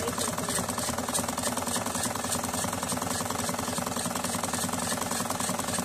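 Domestic sewing machine stitching the hem of a cotton kurti sleeve: a fast, even rattle of stitches at a steady speed.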